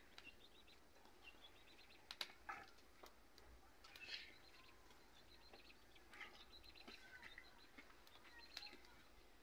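Near silence, with faint bird chirps in the background and a few soft clicks and rustles as chopped raw cauliflower is dropped by hand into a steel pot of fried potatoes.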